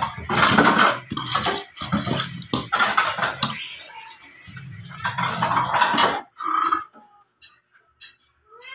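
A metal fork and a plate clattering, with many sharp knocks and scrapes of tableware being handled. The clatter stops abruptly about six seconds in, leaving only a few faint clicks.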